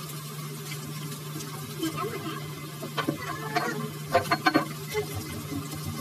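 Rice, chicken and diced vegetables sizzling in a frying pan over a steady low hum, with a cluster of sharp clicks and knocks from about three seconds in.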